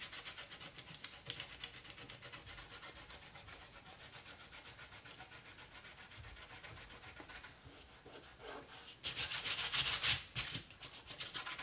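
Fingertips rubbing dried masking fluid, gritty with salt, off painting paper in quick repeated scratchy strokes, several a second. The rubbing grows louder about nine seconds in.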